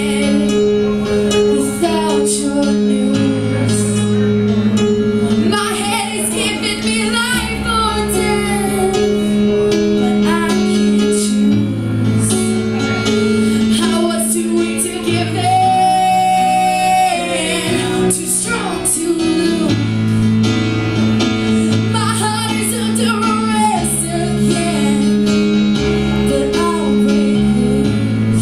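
A song with a woman singing over plucked guitar and a steady bass line.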